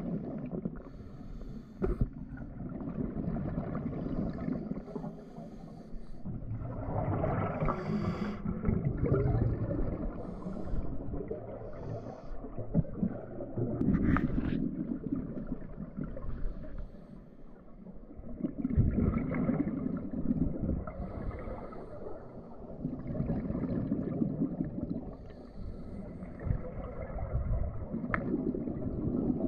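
Scuba diver breathing through a regulator, heard underwater: exhaled air leaves in low bubbling bursts about every five seconds, with fainter hissing inhalations between them.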